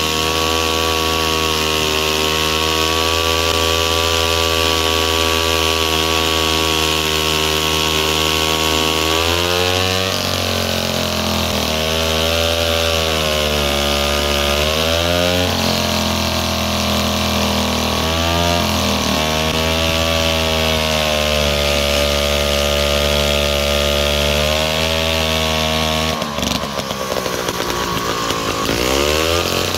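Vintage two-stroke chainsaw cutting through a large log at high throttle, its engine note dipping and recovering as the chain loads up in the wood. Near the end the bar comes free and the engine revs up.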